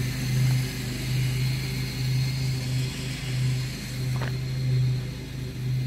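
A low, steady motor drone that swells and fades, with a short click about four seconds in.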